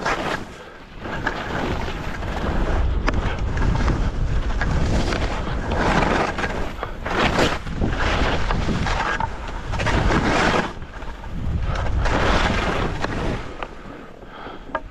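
Wind rushing over the microphone with a steady low rumble, and a string of noisy swishes every second or two as skis turn through snow.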